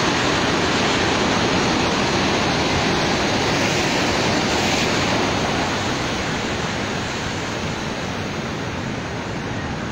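Steady loud rushing noise of heavy rain and wind, easing slightly about six seconds in.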